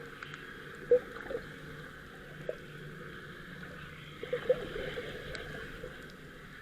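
Boat out on the water: a steady rushing noise over a low hum, broken by a few short, sharp sounds, the loudest about a second in and again about four and a half seconds in.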